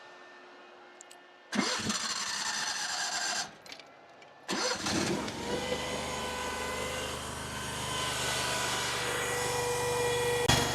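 Mini skid steer's engine cranked by its starter for about two seconds without catching, then cranked again and starting about four and a half seconds in, settling into a steady run. A brief click comes near the end.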